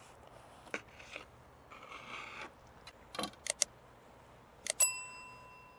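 Knife sawing through a crunchy, griddle-toasted tortilla wrap on a slate board, giving short scraping crunches. Then come two sharp clicks and, about five seconds in, a click and a bright bell ding that rings on slowly: a subscribe-button sound effect.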